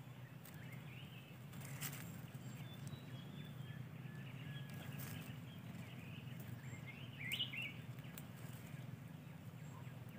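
Faint forest ambience: a steady low background hum with scattered faint bird chirps, the loudest a short rising call about seven seconds in. A few soft clicks and rustles come from hands working in dry bamboo leaf litter.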